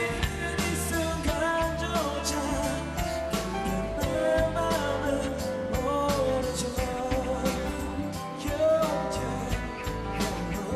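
Live pop music played over a PA, with a steady beat and a singing voice carrying the melody.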